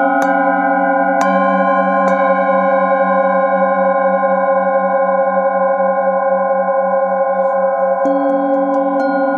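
Metal singing bowls struck with a mallet: three strikes in the first two seconds, then several bowls ring on together with a slow pulsing wobble in the low tone, and light strikes start again near the end.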